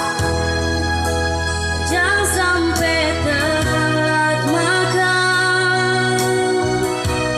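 Electronic keyboard accompaniment with held chords and a bass line, and a woman's voice singing a wavering melody from about two seconds in until about five seconds.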